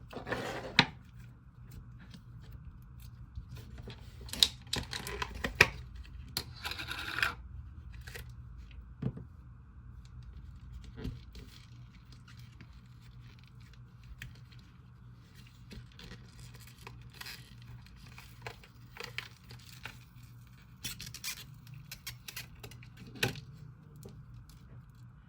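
Hands stretching, squishing and poking a clay-based slime mixed with clear slime, making irregular sticky crackles, clicks and tearing sounds. The sounds are thickest and loudest between about four and eight seconds in.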